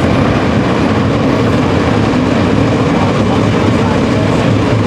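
A pack of winged sprint car engines running together at a steady pace, the field rolling through the turn in formation before the start.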